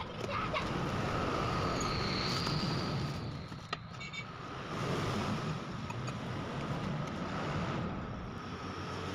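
Cardboard shipping box being opened and the boxed drill stand slid out and handled: irregular scraping and rustling of cardboard, with one sharp tap a little past the middle, over a steady faint hum.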